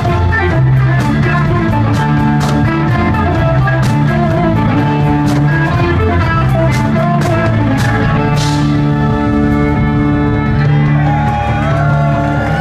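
Live rock band playing: electric guitar and bass guitar over a drum kit, with regular drum hits under a steady bass line. About eleven seconds in, notes start to bend and slide in pitch.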